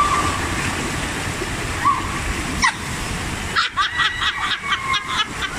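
Water rushing and splashing through the splash-out channel of a tube water slide as riders on inflatable rings come down. There are a few short cries early on, and from a little past halfway several high voices shriek.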